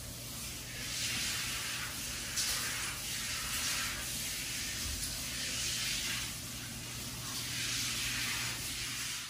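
Hot-spring water pouring from a pipe into the bath, a steady splashing hiss that swells and eases every second or two.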